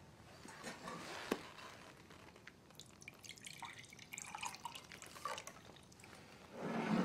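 A drink poured from a ceramic pitcher, faint dripping and splashing, with a light knock about a second in.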